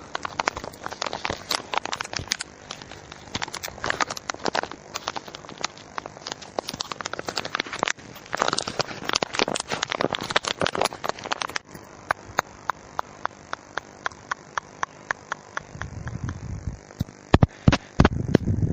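Dense, irregular crackling and clicking that thins out about halfway through into separate sharp clicks, with a few louder clicks near the end.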